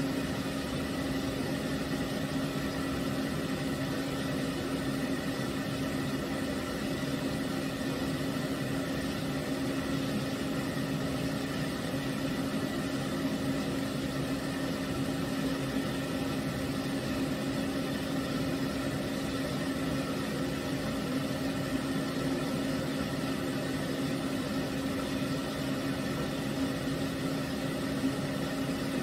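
Floor-stand pet grooming dryer running steadily: an even motor hum over a rush of blown air, holding one pitch.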